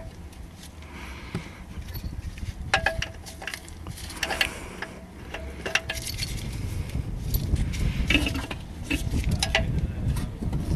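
Light metallic clinks and taps, a few with a brief ring, as the new gearbox mounting bracket and its bolt are handled and lined up. Low rubbing and handling noise grows in the second half.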